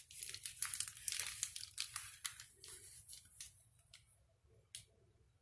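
Plastic packaging crinkling and tearing as it is handled and opened, dense at first, then thinning to a few scattered crackles and clicks.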